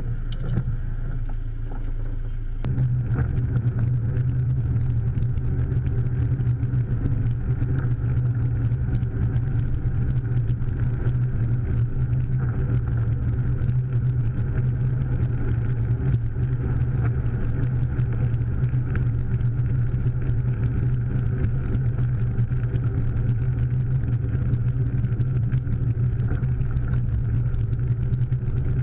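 Car engine and road noise heard inside the cabin, a steady low hum that steps up in level about three seconds in.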